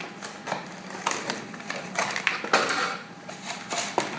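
Motherboard-box accessories and packaging being handled: irregular rustling with light clicks and taps as cables and papers are taken out.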